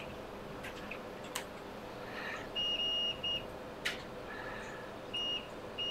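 Multimeter continuity beeper sounding in four high steady beeps, one long and three short, as the probe touches capacitors on an iPhone XR logic board: each beep marks a line shorted to ground. Faint clicks of the probe tip on the board between the beeps.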